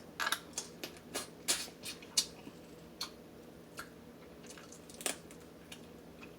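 Close-miked mouth sounds of eating crab: chewing and lip-smacking as irregular wet clicks, coming thickly in the first two seconds or so and more sparsely after.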